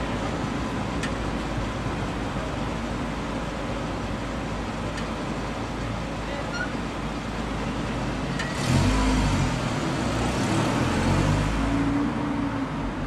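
Street traffic with engines idling at a red light; about nine seconds in, engine rumble grows louder as vehicles pull away when the signal turns green.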